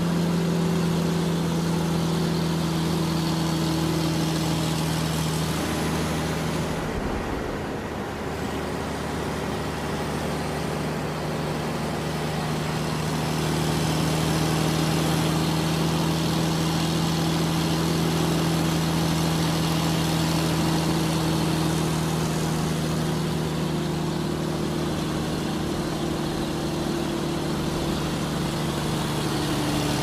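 Large truck engine running while driving: a steady, even drone. The engine note breaks off briefly about seven seconds in, then picks up again.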